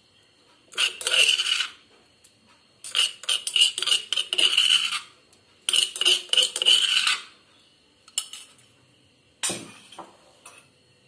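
A steel spoon scraping and clinking against hard dishes, in several bursts of a second or two with short pauses between.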